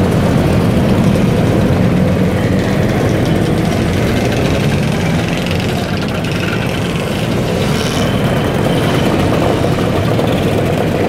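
A stream of Vespa-type motor scooters riding past one after another, their small engines running together in a steady mixed engine noise.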